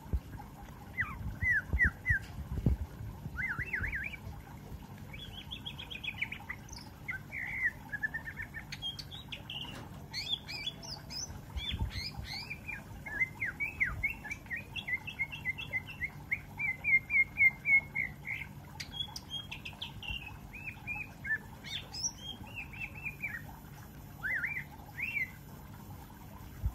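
A young green leafbird (cucak ijo) singing in full voice: a varied, near-continuous string of chirps and quick rising and falling whistled notes, with a fast run of repeated notes about two-thirds of the way through.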